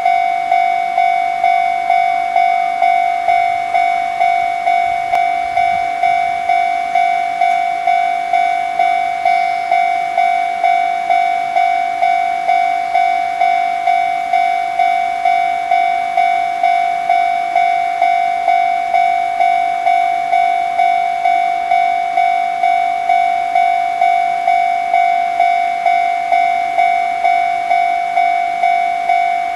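Railway level-crossing warning bell ringing, a single high tone repeating evenly a bit more than once a second, the signal that a train is approaching.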